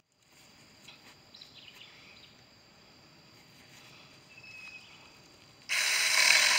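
Faint outdoor background with a thin steady high tone, then about five and a half seconds in a Saker 20-volt battery mini chainsaw starts up loudly and suddenly against a green pine branch.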